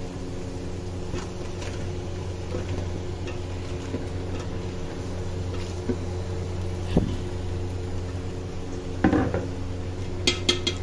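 A metal spoon and chunks of potato and tinda knocking and clinking in a metal cooking pot as the vegetables go in: a few single knocks, a louder cluster late on and several sharp clinks near the end, over a steady low hum.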